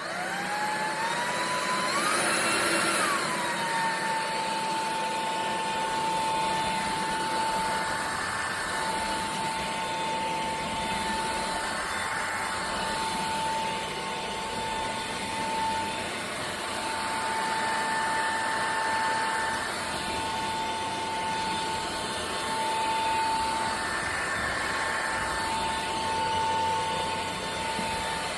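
Cordless stick vacuum motor spinning up, its whine rising in pitch over about three seconds, then running steadily with a high, even whine and a rush of air.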